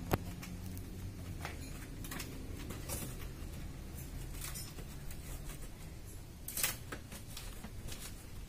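Claw hammer prying the nailed wooden slats off a cardboard guitar shipping crate: scattered clicks and knocks of wood and nails, the sharpest a little past halfway.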